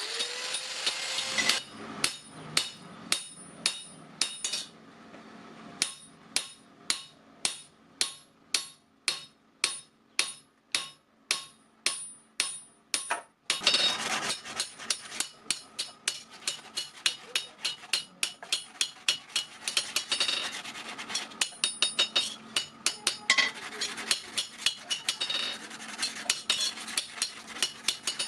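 Hammer blows on the steel of a clutch plate, each a sharp ringing strike, evenly paced at about two a second. About halfway through a steady rushing noise comes in and the blows come faster.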